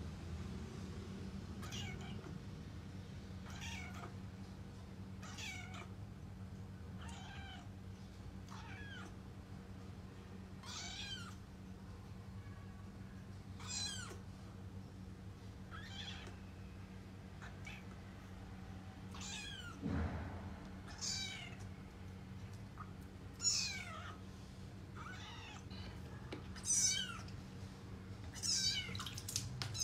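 Very young kitten mewing over and over in distress during its first bath: short, high-pitched cries that fall in pitch, about one every second or two, growing louder toward the end. A steady low hum runs underneath, with a single soft knock about two-thirds through.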